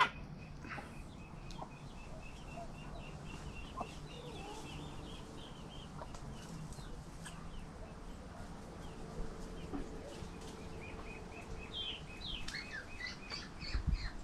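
Domestic hens clucking as they forage, with a steady run of short, high chirps and peeps throughout that grows busier near the end.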